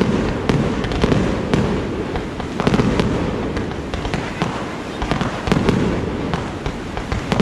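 Fireworks display: many sharp bangs and crackles, several a second, over a continuous low rumble of shells bursting.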